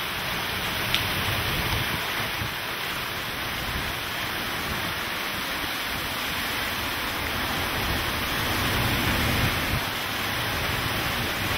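Category 1 hurricane wind and heavy wind-driven rain, a steady wash of noise, with a single sharp click about a second in.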